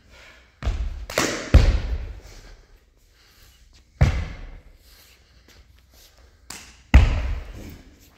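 Sharp thuds and slaps of a Shaolin kung fu form, from feet stamping and landing on the sports-hall floor and strikes against the body and uniform. There are about six impacts, three close together early on, one in the middle and two near the end, each echoing in the hall.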